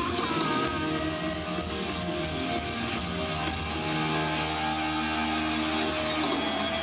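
Live punk rock band playing on stage: distorted electric guitars and drums, with long held guitar notes.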